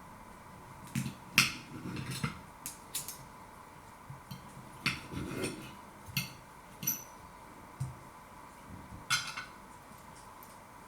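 Knife and fork clinking and scraping against a plate while a cooked sausage is cut open: a run of irregular sharp clinks and taps with a couple of brief scrapes.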